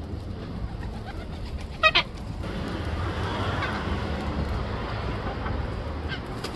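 A bird gives one short, loud call about two seconds in, over a steady low rumble.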